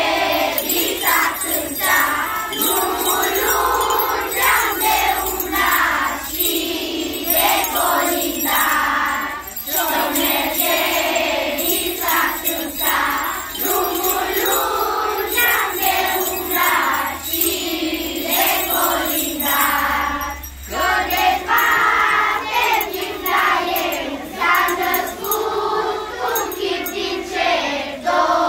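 A large group of children singing a Romanian Christmas carol (colind) together, in long phrases with brief pauses between lines.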